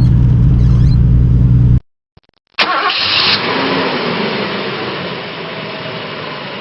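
Holden VL Turbo Commodore's engine running steadily with a deep, even hum. Just under two seconds in it cuts off to near silence, then a separate loud noisy sound starts suddenly with a bright hiss and slowly fades away.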